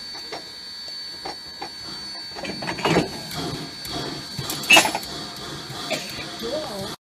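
Metal clanks and knocks from railroad knuckle couplers and air-brake hose gear as narrow-gauge cars are coupled, with a loud clank about three seconds in and the loudest, sharp clank about two-thirds through. A faint steady high whine runs underneath, and the sound cuts off abruptly at the end.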